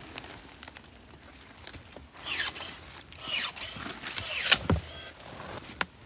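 Footsteps and brush scraping through dry leaf litter and undergrowth on a hillside. After a quiet start come several swishing scrapes in the middle, the loudest about four and a half seconds in.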